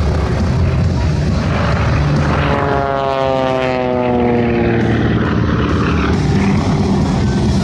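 Propeller-driven aerobatic biplane's engine running as it flies past, its pitch sliding steadily down about halfway through as the plane goes by.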